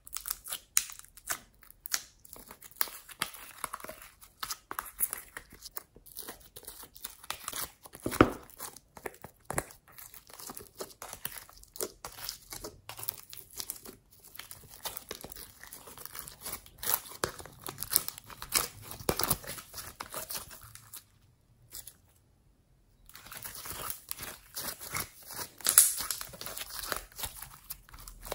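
Fingers pressing, kneading and stretching bubbly homemade slime, a dense run of small crackles, pops and squishes as the air bubbles in it burst. It stops briefly about three-quarters of the way through, then resumes.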